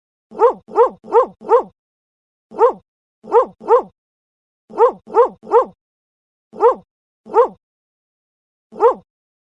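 A dog barking: about thirteen short, sharp barks in quick runs of two to four, with dead silence between the runs.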